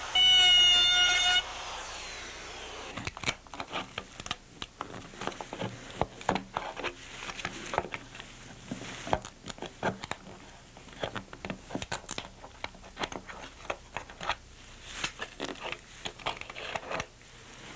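A wavering siren-like tone cuts off about a second in. Then come irregular sharp taps, knocks and scrapes of hand tools on a surfboard as an old fin box is worked loose and pried out.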